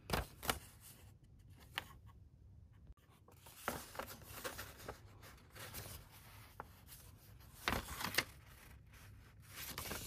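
Paper being handled: a printed card rustling and crinkling between the fingers, with scattered sharp little clicks.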